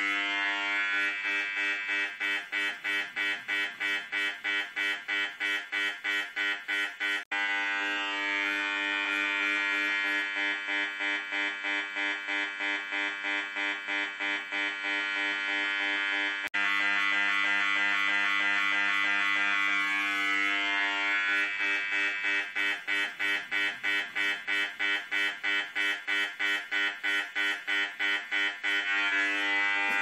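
The speaker of an electronic EMF/RF detector buzzing as it picks up the pulsed microwave transmissions of a wireless baby monitor's base unit. The harsh, pitched buzz is chopped into about four pulses a second for stretches, holds steady in between, and cuts out briefly twice.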